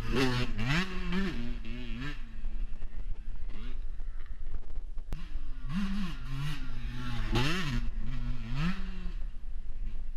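Dirt bike engine revving up and dropping back again and again as it accelerates and shifts on a woodland trail, in two loud spells at the start and again from about six seconds in, with a quieter stretch between. A steady low wind rumble on the microphone runs underneath.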